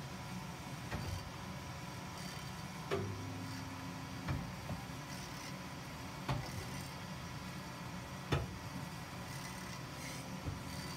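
Amada HA-500 horizontal band saw running with a steady hum, broken by sharp ticks about every two seconds.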